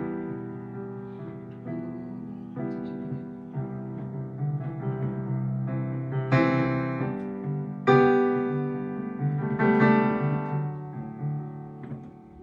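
Piano or keyboard playing slow chords, each one struck and left to ring out. The loudest, brightest chords come about six, eight and ten seconds in.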